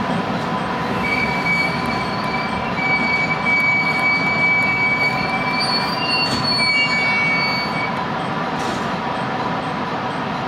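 Electric commuter train's brakes squealing in a steady high pitch for several seconds as it rolls to a stop, over running-gear rumble and a constant high hum from onboard equipment. The squeal dies away once the train is at rest.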